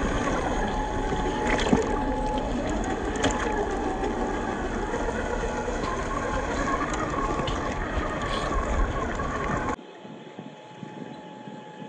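Electric RC crawler's brushed 550 motor and geared drivetrain whining as it drives, the pitch rising and falling with the throttle. The sound drops away abruptly about ten seconds in, leaving only a faint steady whine.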